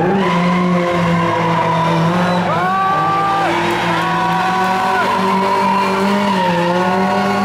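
Historic rally car, a classic Lada saloon, drifting round a tight turn: the engine runs at steady revs while the tyres squeal three times, each squeal drawn out for about a second.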